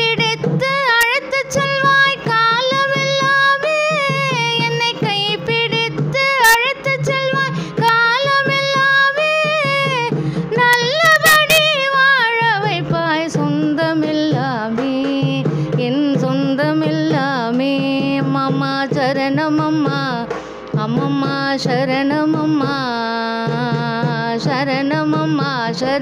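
Carnatic devotional music in raga Sivaranjani, adi tala: a winding melodic line over a steady drone, with mridangam accompaniment.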